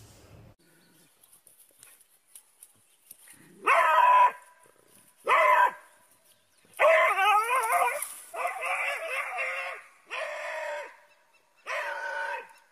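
A dog barking six times, a second or more apart, some barks drawn out to about a second long.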